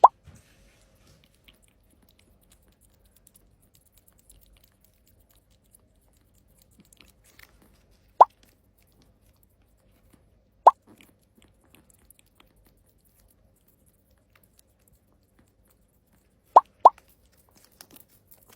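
Cartoon 'bloop' plop sound effects: five short, loud pops, each a quick upward sweep in pitch. One comes at the start, one about eight seconds in, one near eleven seconds, and a quick pair comes near the end.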